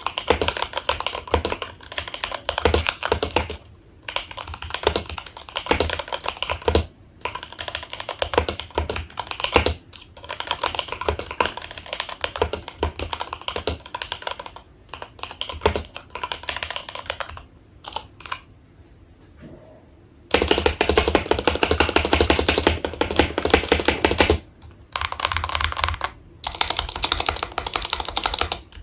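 Typing on a Tes-68 mechanical keyboard with Milky Yellow linear switches: a steady run of key clicks with short pauses, then a denser, louder flurry of very fast keystrokes about twenty seconds in.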